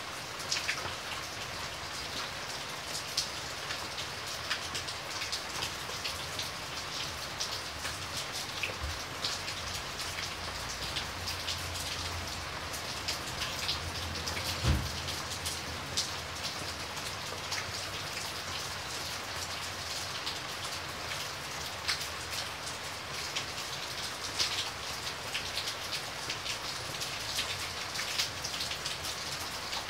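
Steady rain falling, with many close drops ticking. A low rumble swells from about a third of the way in and ends in a single dull thump about halfway.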